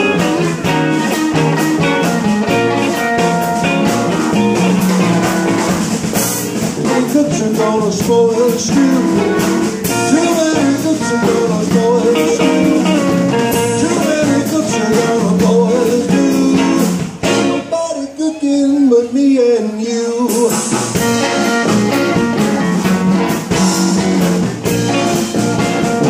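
Live blues band playing, with electric guitars, upright bass and drum kit. About two-thirds of the way through, the band drops out for about three seconds, leaving a single line of bending notes, then comes back in.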